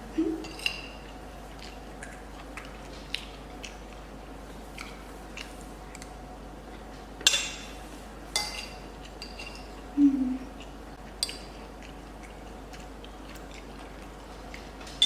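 Cutlery clinking against dishes during a meal: a handful of short separate clicks and taps, the loudest about seven seconds in.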